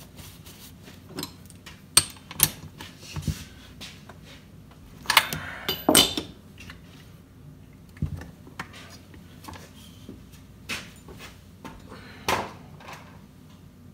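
Light clicks, knocks and clatter of chainsaw parts and tools being handled on a workbench, with a louder scraping noise about five to six seconds in.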